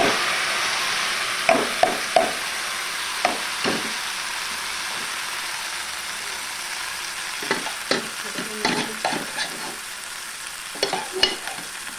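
Food sizzling in hot oil in a frying pan, loudest at the start and slowly dying down. A utensil scrapes and knocks against the pan in a few short bursts of stirring.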